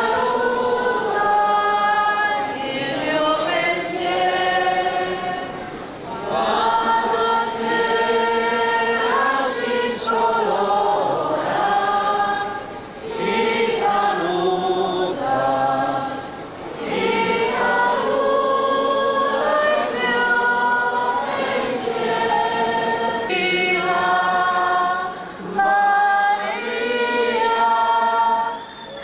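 A choir singing a slow hymn, in long held phrases with short breaks between them.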